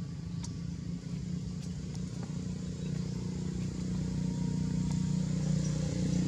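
A motor engine running steadily with a low hum that grows gradually louder, with a few faint high ticks over it.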